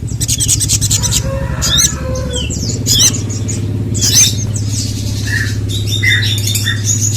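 Crimson sunbird (sogon) calling: a run of sharp, high chirps and fast twittering trills, over a steady low hum.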